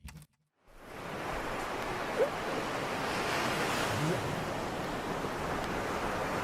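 A steady rushing noise fades in under a second in, after a moment of silence, and holds evenly.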